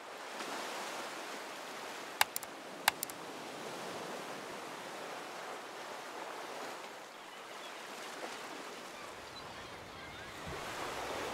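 Ocean surf washing onto a beach: a steady rushing wash that swells gently and builds again near the end. A few sharp clicks break through about two and three seconds in.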